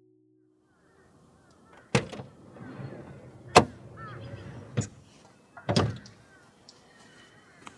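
A few sharp knocks or bangs a second or so apart, the second the loudest, over a faint outdoor background with high chirping.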